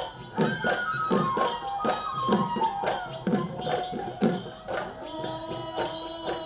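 Live Bihu music: dhol drums beating a strong low stroke about once a second with lighter strokes between, under a pitched melody that falls step by step. The drumming thins out about five seconds in, leaving the melody on long held notes.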